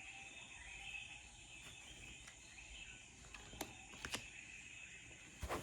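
Jungle-ambience recording: steady insect chirring with scattered bird chirps. A few sharp clicks come in the second half.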